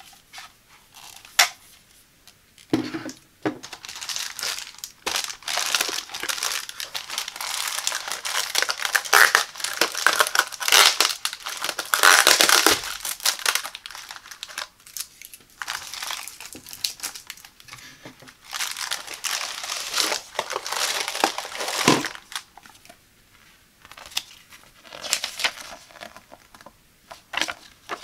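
Plastic air-column cushion packaging crinkling and rustling as it is handled and pulled open, with a couple of dull knocks.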